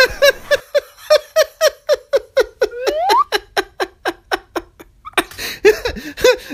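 A high-pitched, rhythmic laugh: a long string of short 'ha' pulses about four a second, with a rising squeal about three seconds in and a short break near five seconds.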